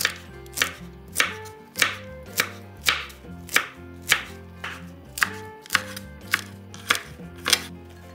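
Chef's knife chopping celery stalks on a wooden cutting board: even strokes, a little under two a second, stopping shortly before the end.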